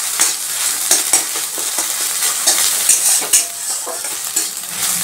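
Eggs scrambling in hot mustard oil in a metal karai, sizzling steadily, while a metal spatula stirs and scrapes the pan in quick, irregular strokes.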